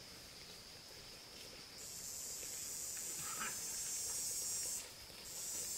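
Forest insects calling: a steady high chirring, with a louder, higher hissing buzz that starts abruptly about two seconds in, cuts off near five seconds and comes back briefly near the end.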